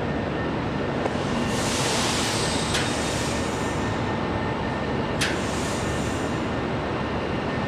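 Steady machine noise from a handheld laser welding machine and its equipment running in a workshop during a welding demonstration. A burst of hiss swells and fades about a second and a half in. Three brief, sharp, high sounds come a few seconds apart.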